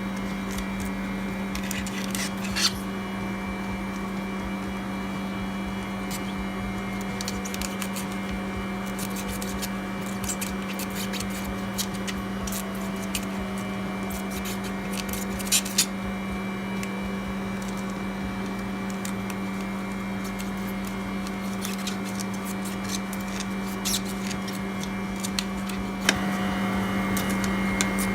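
Steady low machine hum with a faint high steady tone, broken by a few small clicks and taps of handling. The hum grows slightly louder near the end.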